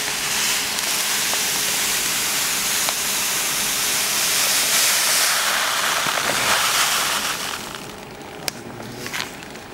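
Gum arabic granules pouring from a plastic bag into a plastic tray: a steady rushing hiss that tapers off about eight seconds in. A few faint clicks follow.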